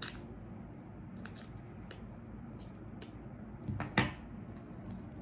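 Hands handling a small replacement camera lens glass and its packaging: scattered small clicks and light scrapes, with a louder sharp click and scrape about four seconds in.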